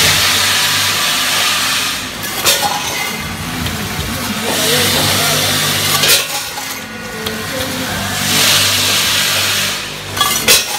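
Automatic screw and hardware packing machine with vibratory feeders and a bucket conveyor running: a steady low hum under stretches of hissing rattle that come and go, with a sharp knock about every four seconds.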